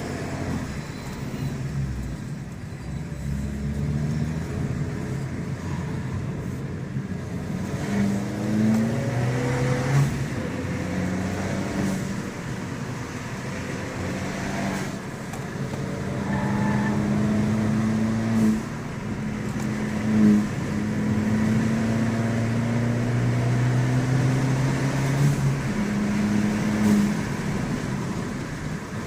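Abarth 595 Pista's turbocharged 1.4-litre four-cylinder on its stock exhaust, accelerating hard: the engine note climbs in several long pulls and drops back between them with gear changes and lift-offs, with a few short sharp cracks along the way.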